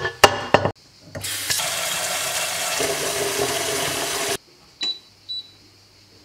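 Kitchen tap running into a sink or container for about three seconds, then shut off abruptly. A few light clicks just before it and two small knocks after it.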